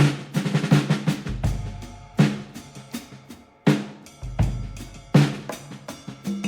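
Background music with a steady drum-kit beat: sharp snare hits and deep bass notes.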